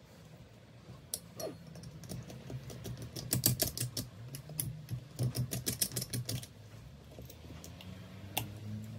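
Flat metal scraper working on a turbocharger's center cartridge and compressor wheel: a quick run of light metallic clicks and scrapes, busiest in the middle.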